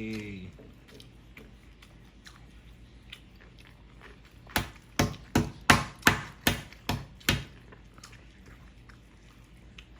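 A quick run of about eight sharp smacks, roughly three a second, starting about four and a half seconds in and lasting some three seconds.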